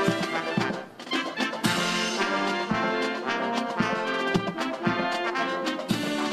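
Military brass band playing a march: sustained brass chords over drum beats that fall roughly once a second, with a brief drop in level about a second in.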